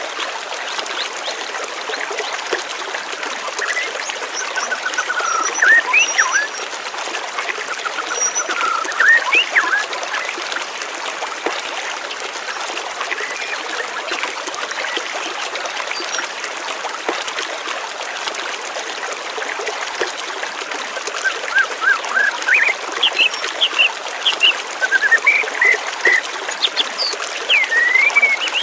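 Water flowing steadily with a trickling sound, with small birds chirping over it: clusters of short rising chirps and trills a few seconds in, and again more busily in the last quarter.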